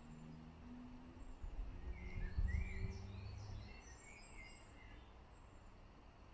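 Small birds chirping in short high notes, busiest around the middle, over a low rumble that swells and fades at the same time.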